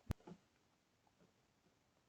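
Near silence, broken only by a single short click just after the start.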